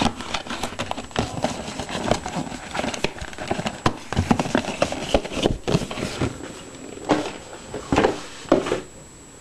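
Cardboard packaging being handled: a string of light knocks, taps and rustles as a cardboard phone box, its lid and paper inserts are moved about, dying down near the end.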